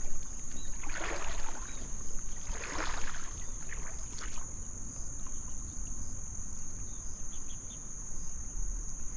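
Insects droning steadily at a high pitch over a low steady rumble, with a few short rustling or splashing bursts in the first half.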